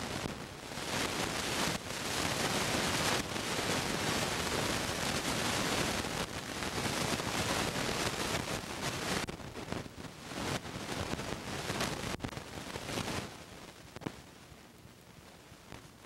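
Rushing noise with no tone or voice in it, like static or hiss. It cuts in suddenly, flutters in level, and dies down about thirteen seconds in.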